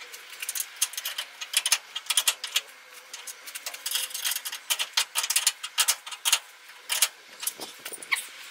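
Hand-tool work on a pickup's rear axle and frame: irregular runs of sharp metallic clicks and clinks, with pauses between them.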